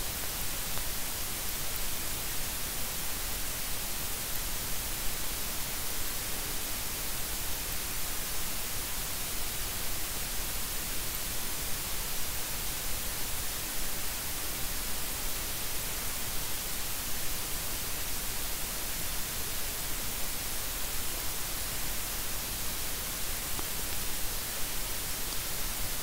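Steady hiss of a microphone preamp's noise floor, fed through an XLR cable terminated with a dummy resistor instead of a microphone and turned up in gain. No hum or buzz breaks through from the power adapters around it.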